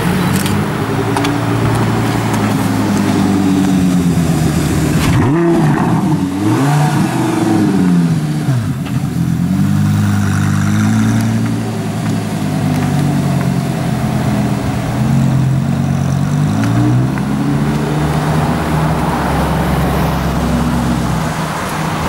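Audi R8 engine revving and accelerating through the gears, its pitch climbing and dropping again and again, with a run of quick up-and-down blips about five seconds in, over street traffic.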